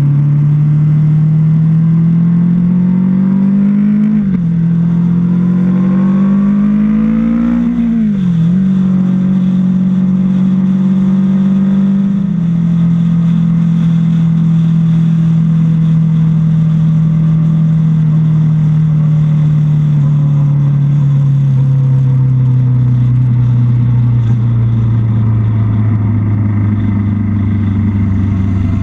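Motorcycle engine heard from the bike the camera rides on, accelerating through the gears: the pitch climbs and drops back at two upshifts in the first eight seconds or so. It then holds steady at cruising speed and sinks slowly near the end as the bike eases off, with a steady rush of wind and road noise underneath.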